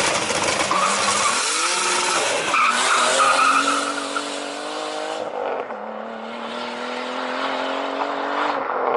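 Turbocharged, modified BMW E46 accelerating hard from a standing start through its modified exhaust, with tyre squeal. A loud rushing noise and climbing revs fill the first few seconds, then the engine settles into a steady drone that drops in pitch about six seconds in, as at an upshift, and climbs slowly again.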